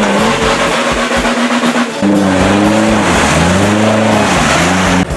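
Off-road 4x4's engine revving up and down repeatedly, over music with a steady drum beat. The engine sound steps up suddenly about two seconds in.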